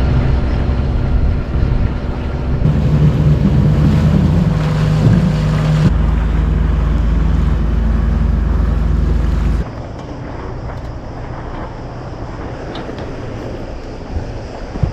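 A boat's engine running under way, with wind on the microphone and water rushing past the hull, in several short cut clips. About two-thirds in, the engine hum drops away, leaving quieter wind and water.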